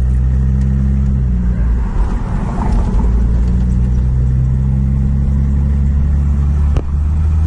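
Car engine running at a steady speed with road noise, heard from inside the cabin; the engine note shifts a little about a second in and again near the end.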